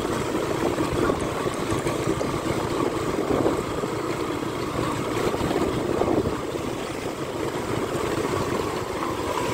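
Motorcycle engine running steadily while riding slowly over a rough, broken road, under a steady rushing noise.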